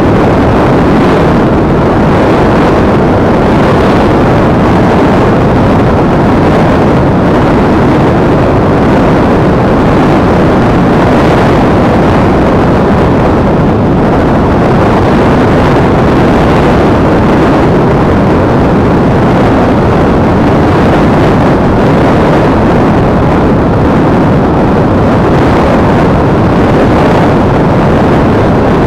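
Multiplex EasyStar electric RC model plane in flight, heard from its onboard action camera: a loud, steady rush of airflow and propeller noise, with no change in pitch.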